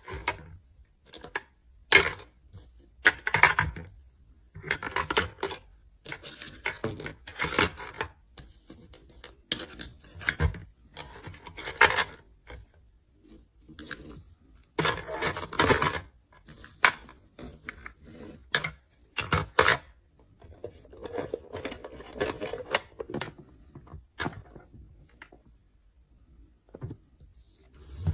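Plastic toy doctor-set pieces being handled, set down and knocked together: a run of sharp clicks and light clatters with short stretches of rustling and scraping between them.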